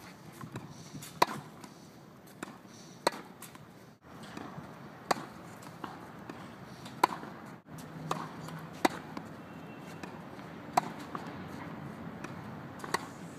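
Tennis ball being hit back and forth with rackets: a sharp hit about every two seconds, with fainter ball bounces on the clay court between the hits.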